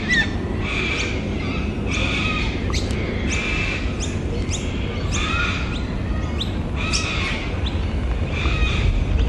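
Short-billed corellas (little corellas) giving harsh, screeching squawks, repeated about once a second, over a steady low rumble.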